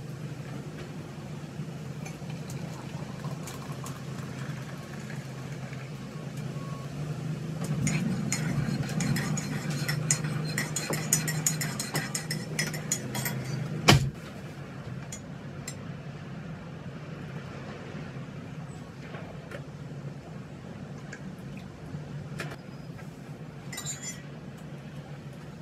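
Metal teaspoon stirring and clinking against the inside of a ceramic mug of tea: a busier stretch of quick clinks about halfway through, ending in one sharp knock, then lighter, scattered clinks. A steady low hum runs underneath.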